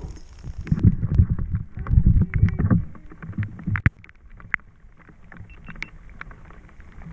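Handling noise aboard a plastic fishing kayak: low thuds and rustling for the first few seconds, then quieter scattered clicks and ticks.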